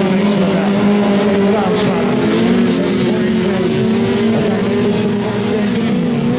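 Several autocross race cars racing on a dirt track, their engines revving hard together. The engine notes waver, dipping and rising in pitch now and then as the cars lap.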